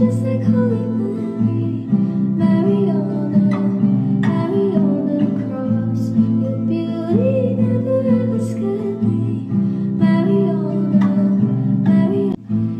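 Background music: an acoustic guitar playing with a soft vocal line.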